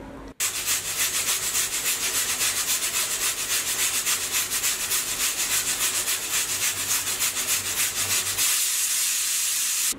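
Stovetop pressure cooker whistling: steam blasts out past the weighted valve in a rapid, even pulsing hiss that turns to a steady hiss near the end, then cuts off. It is the first whistle, the sign that full pressure has built inside, the cue to turn the flame down to low.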